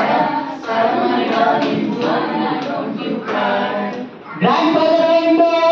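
A group of voices singing together without instruments, in held sung phrases with short breaks between them; the longest break comes about four seconds in, then the singing picks up again.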